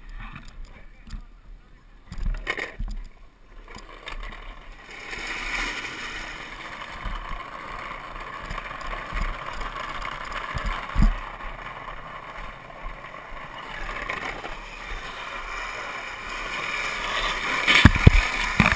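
Steel ball-bearing wheels of a bearing cart rolling over wet asphalt, a steady rough rolling noise with road-water hiss. It starts about four seconds in and grows louder near the end, with a few sharp knocks from bumps.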